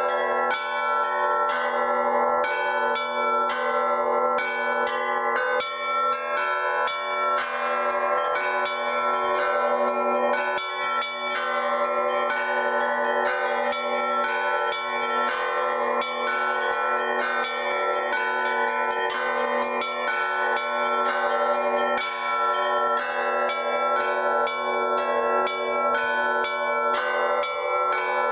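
Russian Orthodox church bell ringing (zvon): an improvised peal, with several bells struck in quick succession, many strikes a second, over the long ringing tones of the bigger bells, going on without a break.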